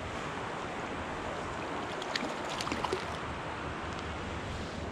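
Steady rush of a trout stream's water flowing, with a few faint clicks about two to three seconds in.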